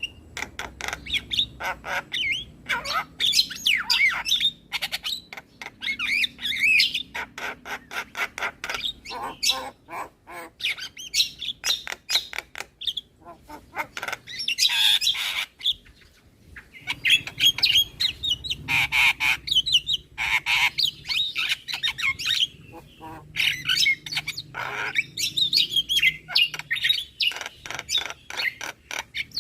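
Javan mynas (jalak kebo) singing in a busy chatter. Rapid runs of clicking notes mix with rising and falling whistled phrases and harsh grating calls, with a brief pause a little past halfway.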